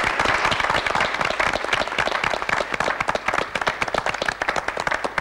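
A group of people applauding: many hands clapping densely and steadily.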